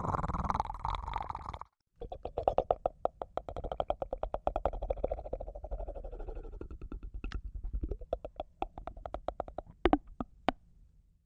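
Made-up dinosaur call for a fictional Acrocanthosaurus. A short growl cuts off, and after a brief gap comes a long, rattling growl of rapid pulses that thins out into a few sharp clicks near the end.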